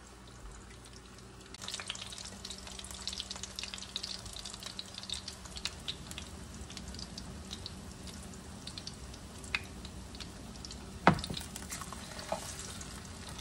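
Thick-cut bologna slices sizzling and crackling in a hot skillet as they brown, the frying starting up about two seconds in. A fork taps and scrapes against the pan as the slices are moved, with one sharp clack about eleven seconds in, the loudest sound.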